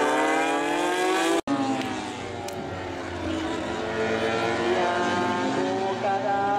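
MotoGP racing motorcycle engine at full throttle, its pitch climbing steadily, cut off abruptly about a second and a half in. After that, racing motorcycle engines are heard again, dropping in pitch and then climbing once more as the bikes accelerate.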